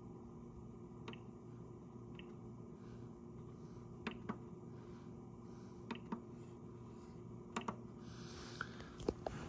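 Scattered sharp clicks from the front-panel controls of a Tektronix 11403A oscilloscope being worked, about ten in all and closer together near the end, over a steady low electrical hum.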